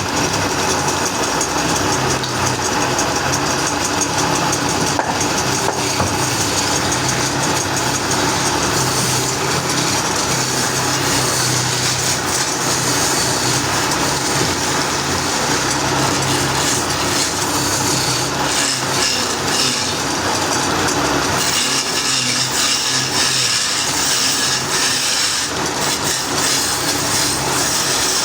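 Sawmill machinery running steadily: an engine hum under the noise of a blade working through wood, with the sound changing about two-thirds of the way in.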